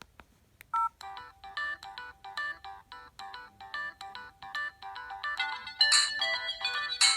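Preloaded ringtone on an LG B470 phone: after a click and a short beep, a quick synthesized melody starts about a second in, repeating a short figure several times a second and building up, with two bright crashes near the end.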